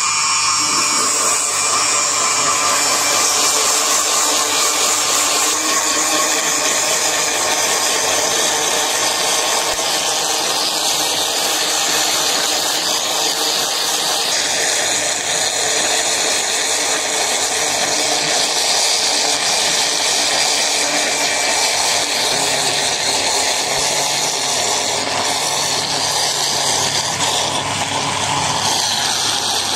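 An electric blender's motor runs steadily at full speed, its blades churning beaten eggs, oil and icing sugar into a frothy liquid batter.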